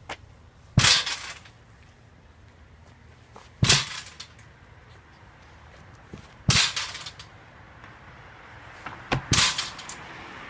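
Four sharp slapping impacts about three seconds apart, each with a short ring-off.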